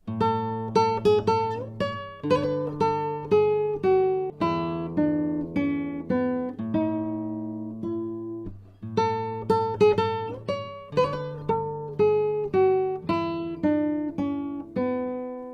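Solo Spanish guitar playing a dance piece: a melody of plucked notes ringing over bass notes. The opening phrase stops briefly about halfway through, then is played again.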